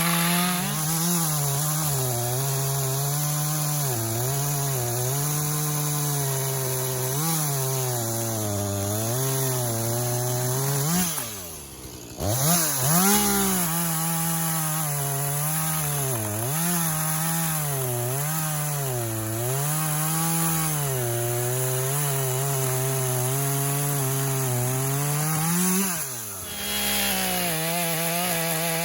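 Gas chainsaw running at high revs while cutting a fallen tree, its pitch wavering up and down as the chain bites and frees. The throttle is let off briefly about eleven seconds in and again near the end, each time revving straight back up.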